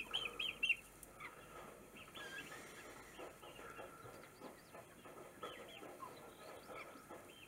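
Young chickens peeping and clucking softly: a quick run of high peeps right at the start, then scattered quieter calls.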